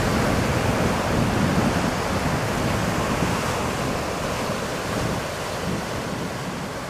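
Sea waves washing in steadily, with wind buffeting the microphone and gradually getting quieter.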